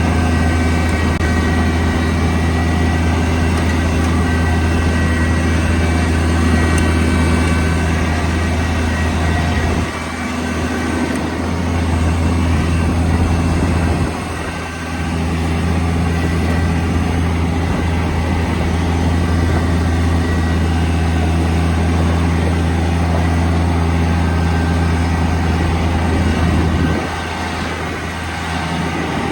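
Tractor engine running steadily under load while clearing snow, its low note easing briefly about ten and fifteen seconds in and dropping again near the end.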